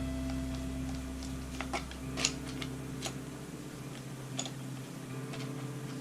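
A handful of small metallic clicks and ticks, about a second apart, from a screwdriver and a rifle optic's mount screws being worked, over background music with a held chord.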